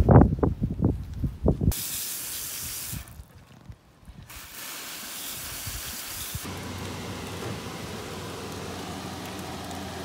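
A few sharp knocks on a wooden table in the first two seconds. Then a garden hose spray nozzle hisses in two spurts. From about six seconds in comes the steady sound of a large pot of water at a rolling boil.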